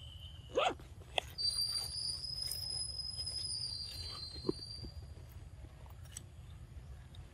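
Long-tailed macaques chewing cucumber, with small scattered crunching clicks. A short rising squeak comes about half a second in, then a steady high whistle runs for about three and a half seconds.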